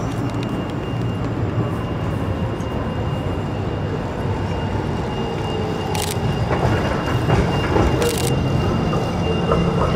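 Street noise at a tram crossing: steady traffic and tram running noise, with a thin steady high whine setting in about half a second in and two short hisses about six and eight seconds in.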